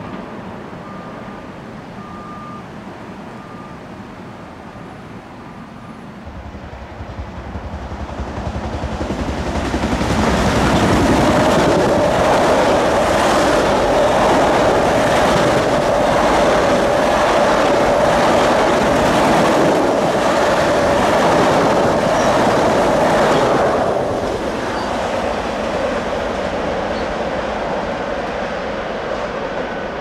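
Long Island Rail Road electric multiple-unit train approaching and passing close by: its sound builds from about seven seconds in to a loud rush of wheels on rail with a steady whine and regular wheel clicks over rail joints, then falls away about 24 seconds in as the cars pass.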